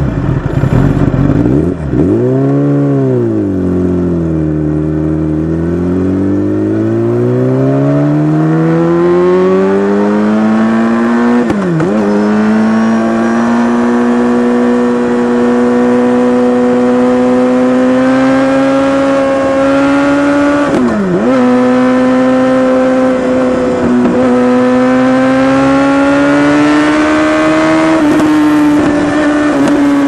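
Kawasaki ZX10R's inline-four engine through an Akrapovic exhaust, heard from the rider's seat while riding. It revs up and drops back about two seconds in, then climbs steadily in pitch as the bike accelerates. Twice the note dips sharply and recovers, and it then holds a steady high note toward the end.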